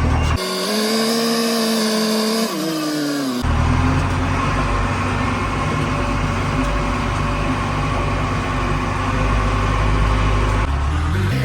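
JCB 3DX backhoe loader's diesel engine running steadily with a deep note. A pitched whine, with the deep part of the sound suddenly gone, takes over about half a second in and sags in pitch after about three seconds, then the deep steady running comes back.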